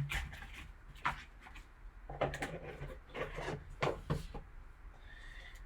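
Trading cards being handled and slid against one another: a few short scraping rubs about a second apart.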